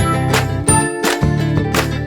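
Upbeat background music with a steady beat, bass, bright tinkling bell-like notes and plucked guitar.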